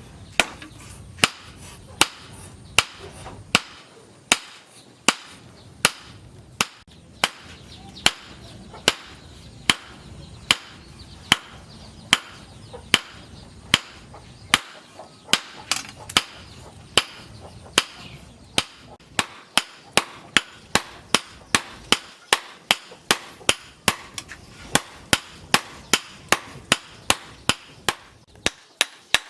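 Hammer blows on steel against an anvil, struck in a steady rhythm that quickens about halfway through, as a piece of tractor disc steel is forged into a knife blade.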